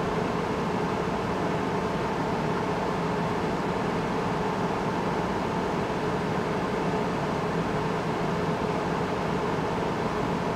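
Steady mechanical hum and hiss of background room noise.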